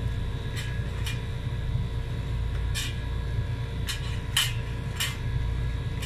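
Scattered light clicks and taps, about five in all, as a metal spoon knocks against a steel plate and pieces of fresh ginger drop into a mortar. A steady low hum runs underneath.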